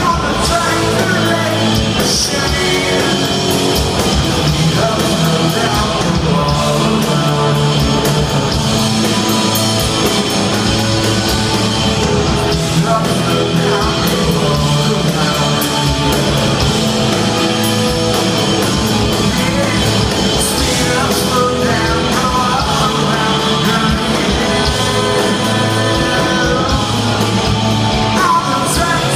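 Live rock band playing, with electric guitars, bass and drums, and a male lead singer in parts, heard from the audience in a large hall.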